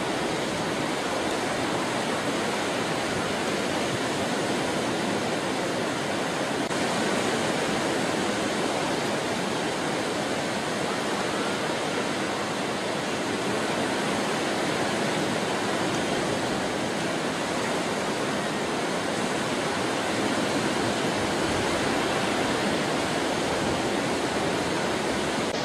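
Steady rushing noise of ocean surf, even and unbroken.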